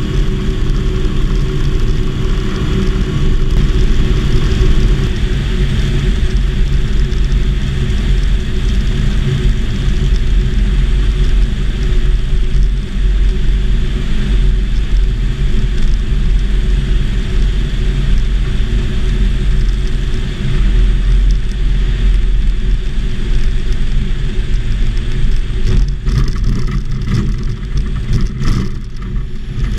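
Light aircraft engine and propeller running steadily in flight, heard from the open cockpit of a homebuilt Volksplane VP-2.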